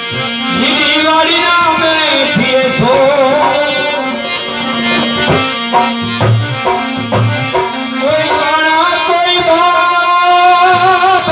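A man singing a devotional folk song through a microphone over his harmonium, whose reedy tone holds steady under the voice, with a drum and hand-held wooden clappers keeping the beat.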